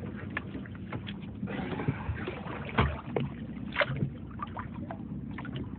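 Boat engine idling steadily, with scattered knocks and clatter on deck.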